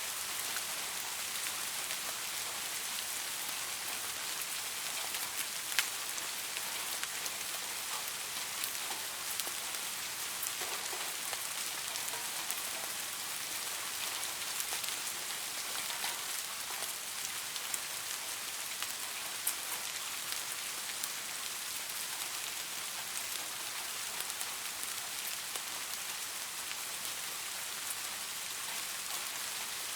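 Steady rain falling on leaves: an even hiss with scattered individual drop taps, a sharper one about six seconds in.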